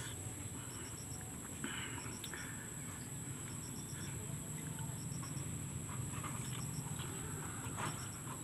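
Rural outdoor ambience: a steady high insect drone with short quick chirps repeating a little faster than once a second. A few soft clicks and crackles of eating crispy fried chili by hand, with a sharper crunch of a bite near the end.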